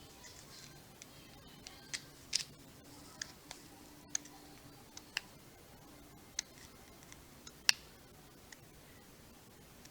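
Irregular light clicks and taps, about a dozen spread unevenly, with one sharper click near the end, over a faint steady background.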